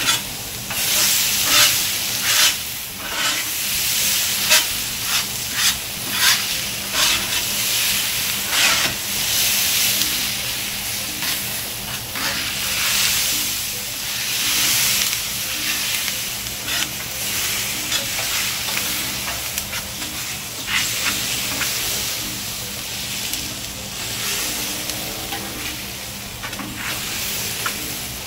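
Diced potatoes and green peppers sizzling on a Blackstone 22-inch flat-top griddle, with a spatula scraping and tapping on the steel plate as the potatoes are stirred and pushed to one side. The steady sizzle carries on throughout, and the scrapes come thickest in the first half.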